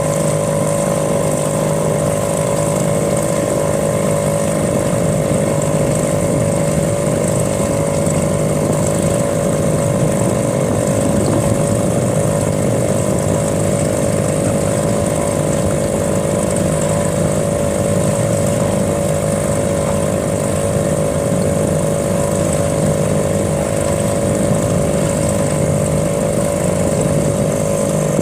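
Small engine running steadily at a constant speed, with an even hum and a thin high whine that do not change.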